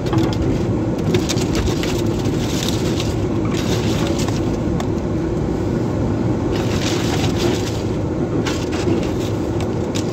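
Two-wheel-drive vehicle's engine and drivetrain running steadily under load while it ploughs through deep snow, heard from inside the cab. Repeated crunching and crackling bursts come from the tyres breaking through snow and from snow hitting the body and windshield.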